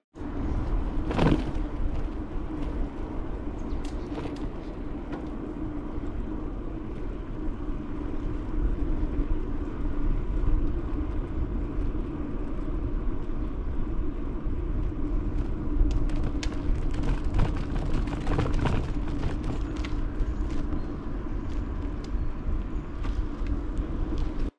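Steady low rumble of riding a bicycle along a paved bike path: wind on the microphone and tyre noise, with a few faint ticks.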